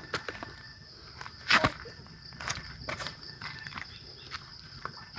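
Footsteps on rocks and stones, with irregular knocks and scrapes, the loudest about a second and a half in. A steady high insect sound runs underneath.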